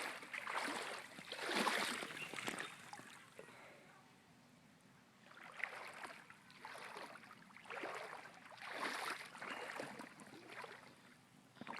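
Shallow floodwater swishing and splashing in repeated swells, about one a second, as a small boat is pushed through it, with a short lull a few seconds in.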